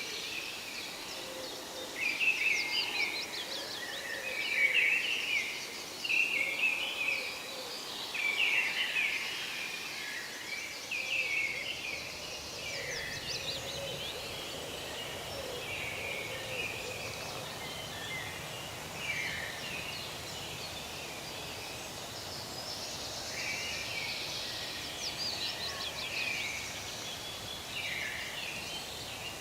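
Forest birds singing: short, repeated chirping calls coming every second or two over a steady faint background hiss.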